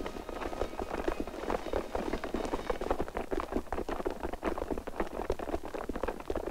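Many boots tramping on pavement as a column of men walks past, a dense irregular patter of footsteps with no break, over a low steady hum.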